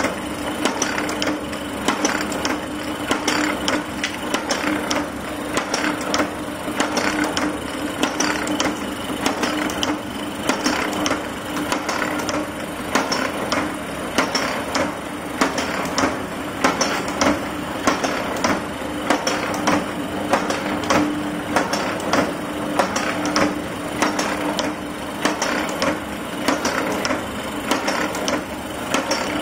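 Automatic dog leg hook making machine running, its steel wire-bending and cutting dies clacking in a fast, regular rhythm over a steady motor hum.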